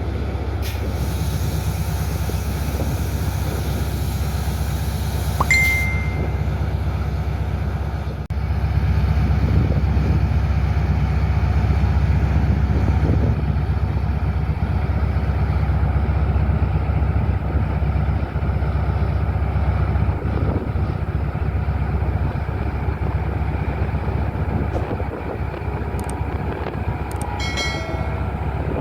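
Karakoram Express passenger train running past at speed: a steady, heavy rumble of locomotive and coaches on the rails. A brief high-pitched tone sounds about five seconds in, and a few short high tones come near the end.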